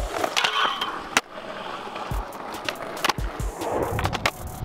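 Skateboard wheels rolling on concrete, with several sharp clacks of the board, the loudest about a second in. Music plays underneath.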